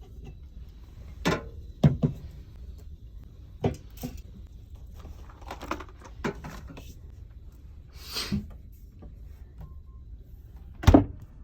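Scattered knocks and clunks of things being handled, with a short hiss about eight seconds in and a heavy thump near the end.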